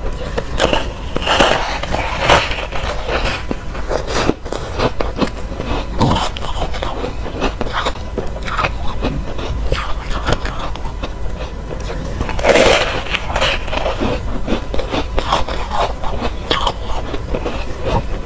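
Close-up crunching and crackling of a foam ice cake bitten and chewed in the mouth, with teeth scraping across its hard shell. A bite a little past the middle gives the loudest crunch.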